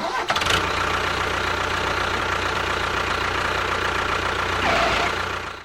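An engine running steadily at an even speed with a dense, knocking hum. It cuts off suddenly at the end.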